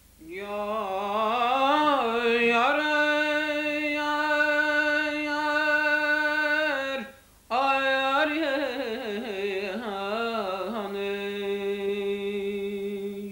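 A solo voice singing two long, ornamented held phrases, with a short break for breath about seven seconds in.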